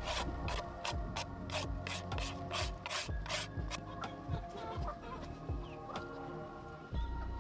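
A hand rubbing and scraping back and forth over a clay-smeared flat board, about three strokes a second, stopping about three and a half seconds in. Soft background music plays throughout.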